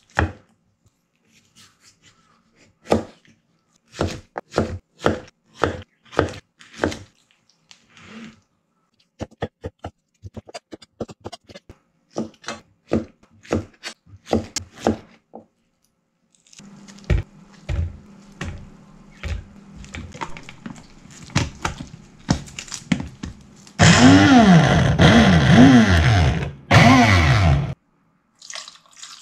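Kitchen knife cutting pineapple on a plastic cutting board: runs of sharp taps as each slice goes through. Then a few dull knocks, and a small Tescom personal blender runs for about four seconds near the end, its motor pitch swooping up and down as it struggles: with no liquid added, the blade cannot turn the pineapple chunks.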